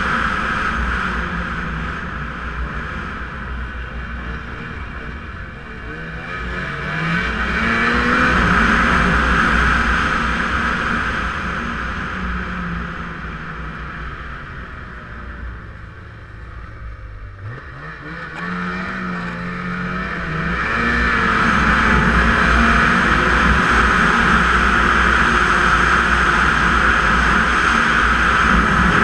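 Snowmobile engine running under way. It eases off and picks up again twice, dropping lowest about two-thirds of the way in before revving back up to a steady high run.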